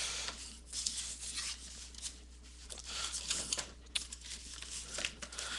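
Cardboard scraping and rubbing as hobby boxes are slid and lifted inside a cardboard shipping case, in a few short scuffing bursts.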